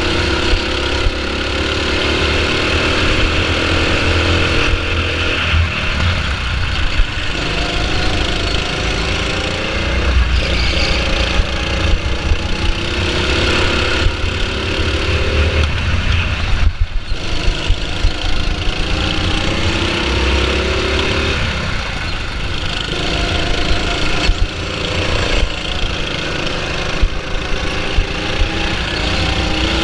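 Go-kart engine running at speed, its pitch climbing steadily and then dropping abruptly several times as the throttle is opened and lifted, over a heavy low rumble.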